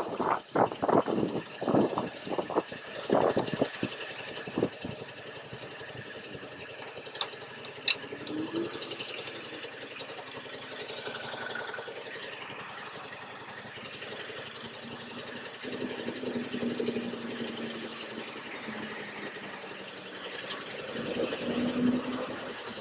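Wind buffeting the helmet-mounted microphone for the first few seconds, dying away as the motorcycle slows. Then the Yamaha MT-07's parallel-twin engine idles steadily while stopped in traffic.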